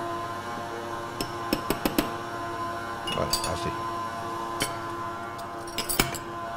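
Stand mixer's motor running steadily at low speed, beating cake batter, with an even hum. Over it a small spoon clinks against a bowl in several quick groups of taps while flour and baking powder are stirred together.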